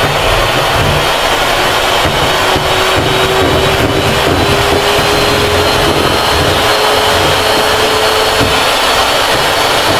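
Electric hand mixer running steadily at high speed, its beaters whipping chilled whipping cream in a bowl.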